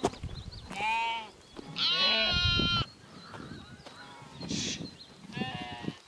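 Sheep in a running flock bleating three times: a call about a second in, a louder, longer bleat about two seconds in, and a shorter one near the end, with a brief hiss in between.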